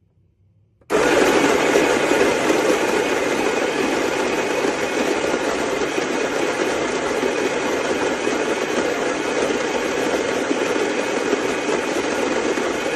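Ollygrin electric conical burr coffee grinder switching on about a second in and running steadily as it grinds coffee beans.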